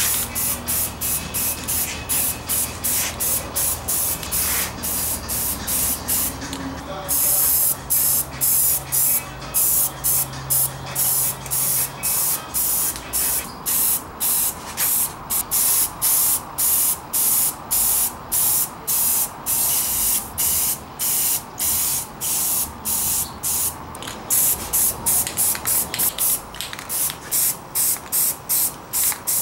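Aerosol spray can of red enamel paint hissing in short, repeated bursts, about two a second, with brief gaps between them.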